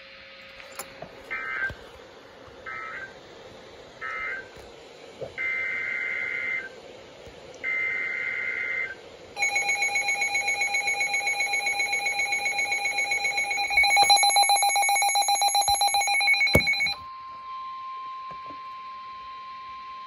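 Emergency Alert System broadcast audio: three short digital SAME data bursts, the end-of-message codes closing one severe thunderstorm warning, then two longer SAME header bursts for the next. About nine seconds in, the pulsing two-tone EAS attention signal sounds for about seven seconds, then gives way to the single steady weather-radio alert tone.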